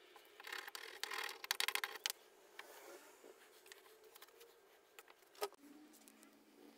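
Faint clicks, taps and scraping of things being handled on a workbench: a quick cluster in the first couple of seconds, scattered ticks, and one sharper click near the end, over a faint steady low hum.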